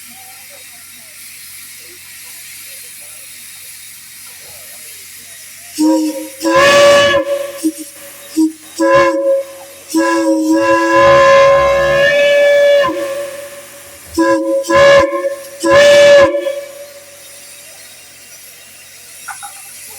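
Steam whistle blown in a run of short toots and longer blasts, several notes sounding together, starting about six seconds in; the longest blast lasts about three seconds. A steady hiss of steam runs under it.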